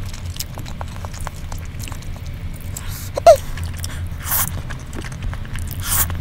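Close-up eating sounds of jjajangmyeon: chewing with small wet mouth clicks, and noodles slurped in two airy bursts, the second near the end. A brief squeak about halfway through is the loudest moment.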